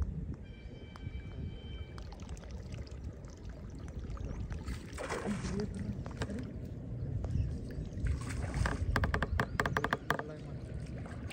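Water splashing and sloshing as the angler strikes and fights a hooked fish at the surface. There is a splashy burst about five seconds in, then a fast run of sharp clicks near the end.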